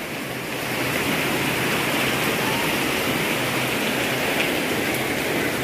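Heavy rain pouring down steadily, a little louder from about half a second in. The storm's wind has died down, leaving only the rain.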